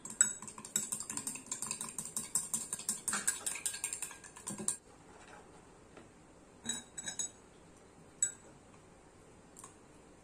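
Chopsticks beating an egg in a glass bowl: quick clicking of the sticks against the glass for about five seconds, then a few separate clinks.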